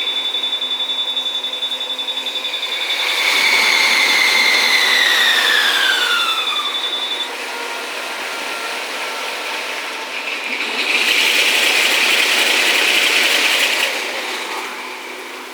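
Japanese railway level-crossing warning alarm ringing in a fast steady pulse while a train passes, the train's whine falling in pitch as it goes by. The alarm stops about seven seconds in. A second loud rush of passing traffic comes around eleven seconds in and fades near the end.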